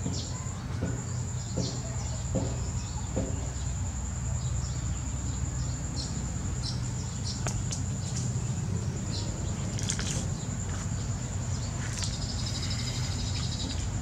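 Natural outdoor ambience: a steady high-pitched insect drone, scattered short bird chirps and clicks, and a brief rapid trill near the end, over a low steady rumble.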